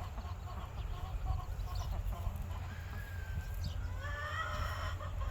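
Hens clucking in a run of short repeated notes, then a longer, higher squawking call near the end, the kind of squawking the speaker ties to hens laying eggs. A steady low rumble lies underneath.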